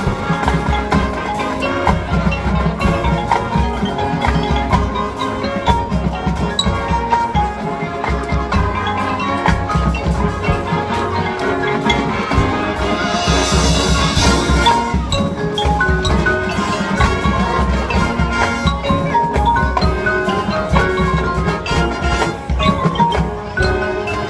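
High school marching band playing live on the field, with the front ensemble's marimbas and other mallet percussion and the drums prominent over the winds. A bright crash comes about halfway through.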